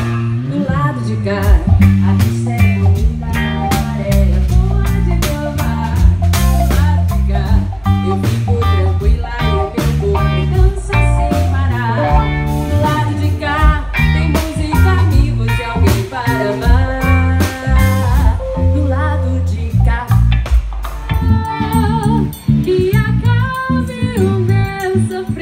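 Live band playing: electric bass and guitar over regular drum hits, with a singing voice.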